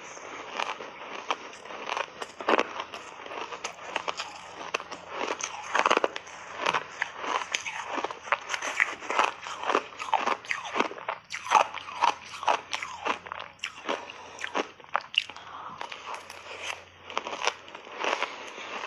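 Close-miked crunching and chewing of shaved ice eaten in big bites: a dense, irregular run of crisp crunches.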